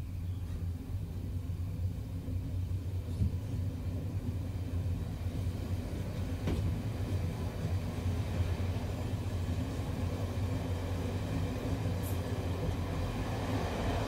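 Electric train starting to move, a low steady rumble that slowly builds as it gathers speed, with a few faint clicks along the way.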